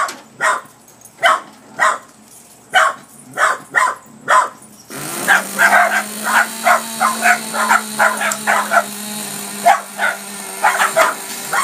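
Scottish terriers barking sharply and repeatedly, agitated by a remote-control truck. The barks come singly at first, then faster and overlapping. About five seconds in, a steady low hum starts under them.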